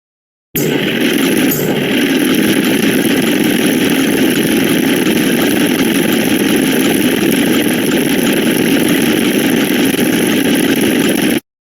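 A loud, steady, noisy sound effect with a motor-like hum. It starts about half a second in and cuts off suddenly just before the end.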